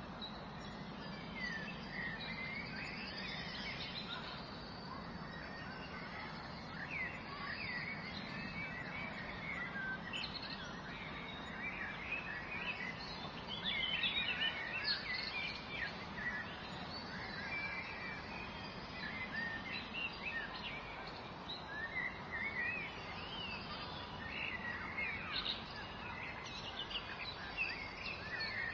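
Several small birds chirping and singing busily, over a steady low hum.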